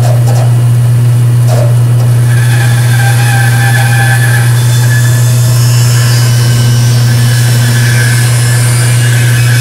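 Bandsaw running and cutting through a block of wood: a steady low motor hum, with the blade's cutting noise setting in about two seconds in and continuing.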